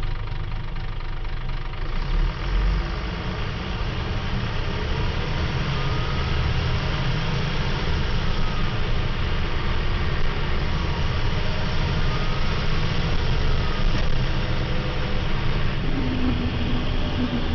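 Diesel engine of a Scania L94UB city bus running steadily, getting louder and fuller about two seconds in.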